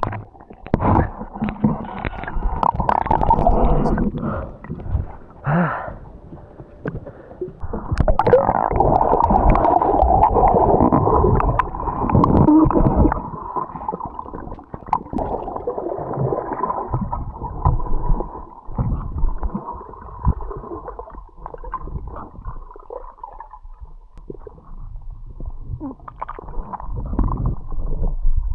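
Muffled underwater water noise with gurgling bubbles, heard by a camera below the surface. It comes in surges, loudest at the start and again from about eight to thirteen seconds in, then quieter.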